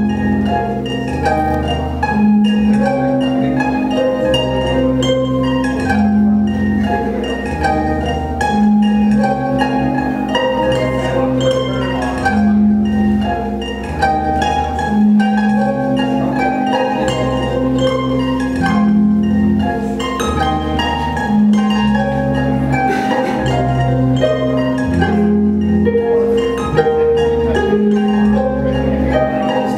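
Lyon and Healy Concert Grand pedal harp played live: a steady flow of plucked notes over sustained low notes that shift every second or two.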